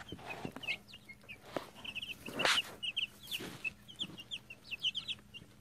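Young chicks, two to three weeks old, peeping: many short high cheeps in quick runs. There is a louder rustle about two and a half seconds in.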